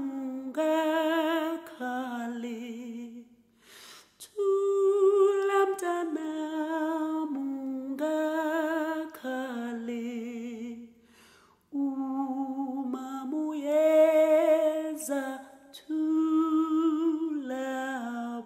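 A single voice singing a slow, unaccompanied melody in long held notes with vibrato, without clear words, pausing briefly twice.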